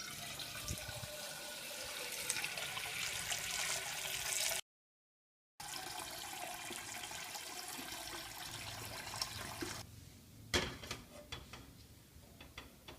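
Water running from a tap into a pot as a steady hiss. It cuts off abruptly to silence for about a second partway through, then resumes. The water stops a little after the middle, followed by a few knocks and clicks.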